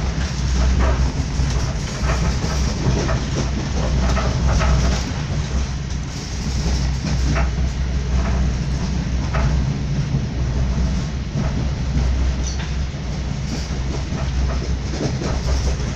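Moving train heard from inside a passenger carriage: a steady low rumble of the wheels on the track, with irregular clicks and knocks from the rail joints.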